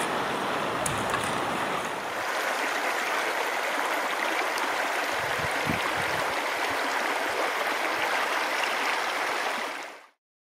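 Shallow river water rushing and babbling over rocks in a riffle, a steady rush that stops abruptly near the end.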